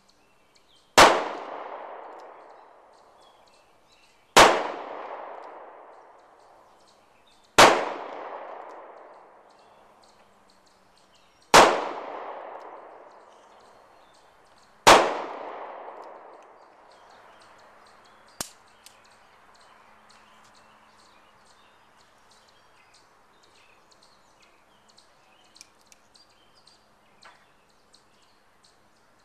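Five handgun shots fired slowly, about three to four seconds apart, each followed by a long echo dying away.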